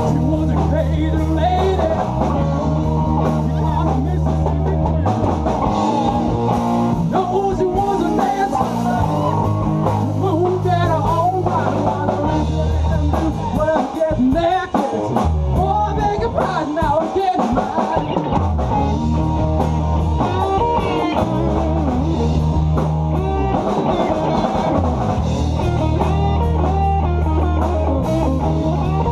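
A live rock band playing: electric guitars over a bass line and drum kit, with steady drum hits and the bass changing notes every few seconds.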